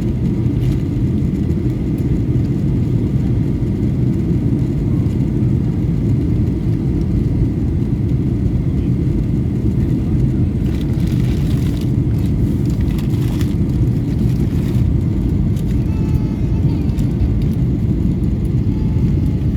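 Steady low rumble of a Boeing 737-800 in flight, holding an even level throughout.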